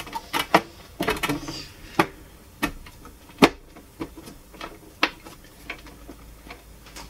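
Moulded plastic bottom cover of a Technics SL-J110R turntable being pressed and knocked into place on the case: a string of irregular clicks and knocks, the sharpest about three and a half seconds in.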